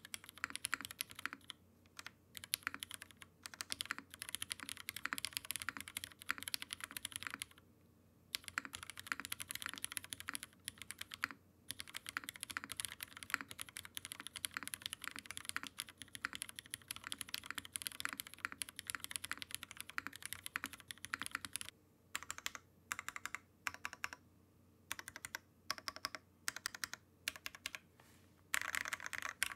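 Typing on a Matrix Lab Navi mechanical keyboard with Cherry Hyperglide MX Black linear switches in a full aluminium plate with no foam, under GMK keycaps. It is a fast, steady run of keystrokes with two short pauses. About two-thirds of the way through it breaks into single keys and short clusters with gaps between them, and fast typing resumes near the end.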